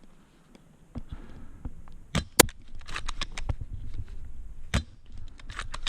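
Airsoft sniper rifle firing, the Action Army AAC T10, a spring-powered bolt-action. Two sharp shots come about two seconds in, the second the loudest, with another shot near the five-second mark and smaller clicks in between.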